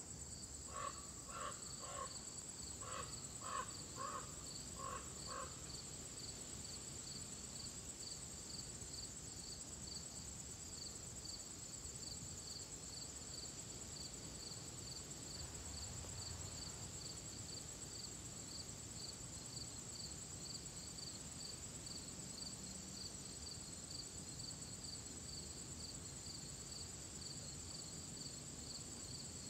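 Insects trilling: one steady high trill and a second, lower one that pulses evenly. In the first few seconds a bird gives two short runs of calls.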